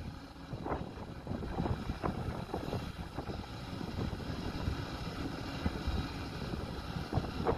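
Kobelco SK140 hydraulic excavator's diesel engine running steadily under load as it swings back and digs into the soil, with wind rumbling on the microphone. A few soft knocks come through, about one and two seconds in.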